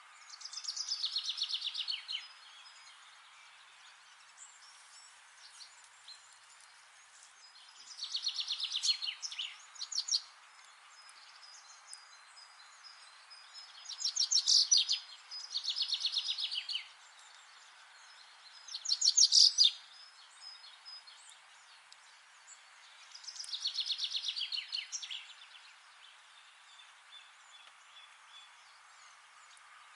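A songbird singing short rapid trills, each about two seconds long and falling in pitch, repeated six times with pauses of a few seconds between, over a steady background hiss.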